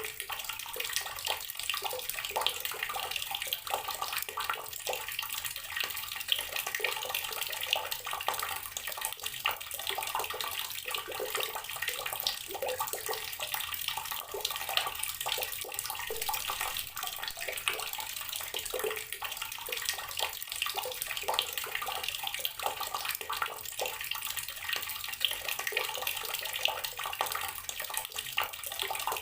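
Water from a tap pouring steadily into a container of water, a continuous splashing and gurgling stream with no pauses.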